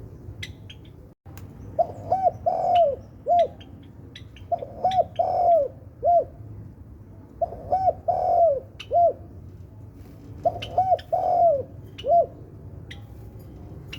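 Spotted dove (tekukur) cooing: four repeated phrases about three seconds apart, each of two short coos, a longer one and a final short one. Faint high chirps and ticks of other small birds sound between the phrases.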